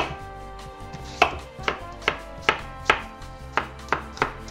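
Chef's knife chopping a Granny Smith apple into bite-sized pieces on a wooden cutting board: sharp knocks of the blade going through the crisp apple onto the board. One knock comes at the start, then after a pause about nine more follow at two to three a second.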